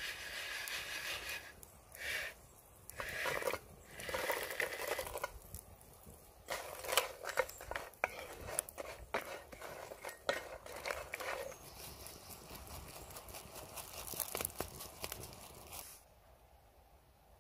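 Chicken pieces tipped from a wooden bowl into a cast-iron pot of hot sauce, then a wooden spoon stirring, scraping and knocking against the pot in quick, irregular clicks. The sound stops suddenly near the end.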